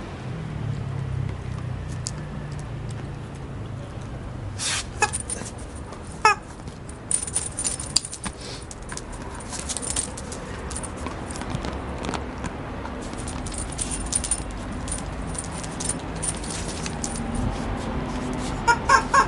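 Dog playing with a rubber chicken toy on a tile floor: claws and the toy click and scrape on the tiles, with short squeaks from the rubber chicken around five and six seconds in and a quick run of them near the end.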